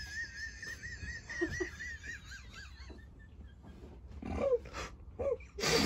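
Two women laughing helplessly: a thin, wavering high-pitched squeal for the first two seconds, then short breathy bursts of laughter, loudest near the end.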